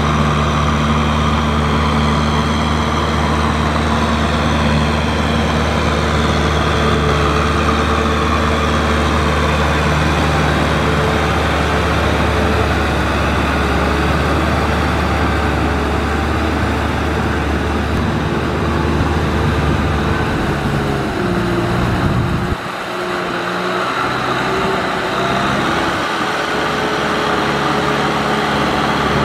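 Kubota M6040SU tractor's four-cylinder diesel engine running steadily under load while it drives a rotary tiller through flooded paddy mud. About three-quarters of the way through, the deep part of the engine sound drops away suddenly and the running carries on lighter.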